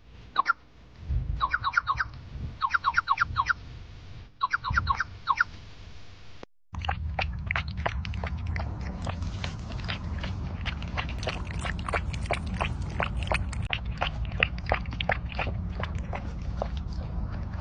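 A duckling peeping in quick runs of high chirps. After a break, a puppy laps water, a steady run of short clicks over a low rumble.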